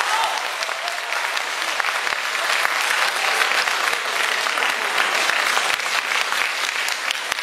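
Audience applauding steadily after a pipa ensemble's performance ends.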